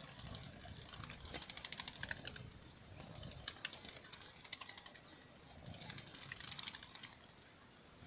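Eared doves' wings flapping in rapid flurries as the birds fly in and past, over a steady high-pitched buzz in the background.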